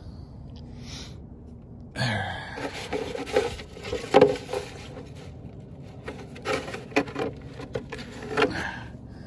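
Rubbing and scraping handling noises in a string of uneven bursts, starting about two seconds in and loudest around the middle, then dying away near the end.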